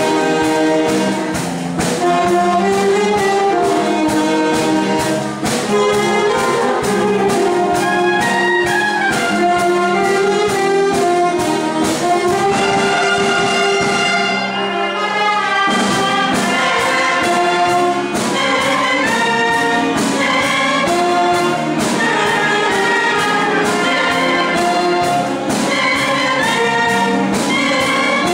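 A live wind band plays with a steady beat, brass out in front. About halfway through the sound thins for a moment, then the full band comes back in.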